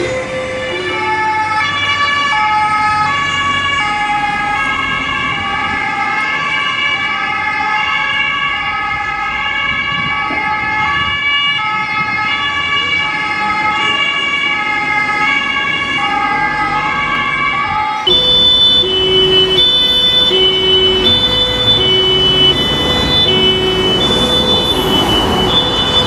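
German police two-tone siren (Martinshorn) sounding its alternating high-low tones. About 18 seconds in it cuts to a second, louder and lower-pitched recording of the same two-tone siren, with traffic noise behind it.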